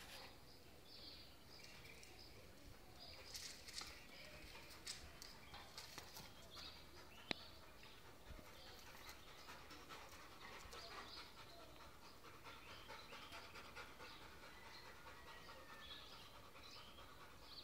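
A bullmastiff and another large dog panting faintly, with one sharp click about seven seconds in.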